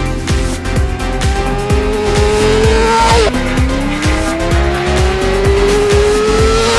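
Racing sport motorcycle engine at full throttle, its pitch climbing steadily through a gear, dropping sharply at an upshift about three seconds in, then climbing again. Background music with a steady beat plays underneath.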